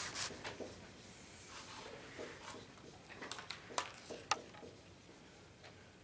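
Marker writing on a whiteboard: short scratchy strokes and taps, busiest from about three seconds in.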